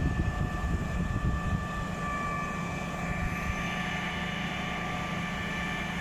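Diesel engine of a Putzmeister 42-5 truck-mounted concrete pump running steadily, with a steady high whine over a low rumble. The rumble is rougher for the first second or two, then settles.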